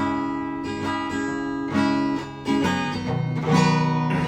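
Acoustic guitar being strummed, several chords ringing with a change of chord about every second.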